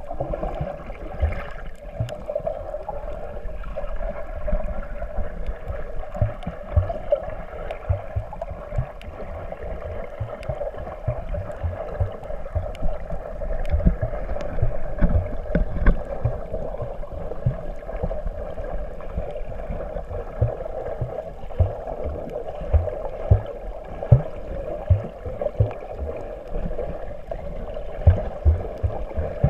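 Muffled underwater sound: a steady hum with frequent, irregular low thumps of water moving against the submerged recorder.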